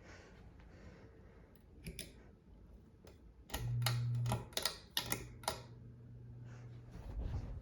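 A series of switch clicks, then the Monte Carlo Premier ceiling fan's motor comes on with a steady low electrical hum. The hum starts about three and a half seconds in, cuts out briefly, and returns quieter while more clicks sound.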